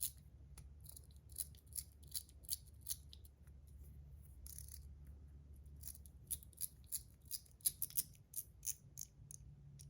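Faint, scattered light ticks and rustles of small packaging and a metal top being handled, irregular and with no steady rhythm.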